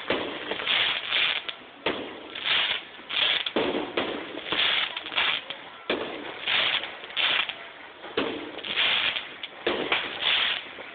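Fireworks crackling and popping in repeated hissy bursts, often in pairs about half a second apart, with a few sharper bangs.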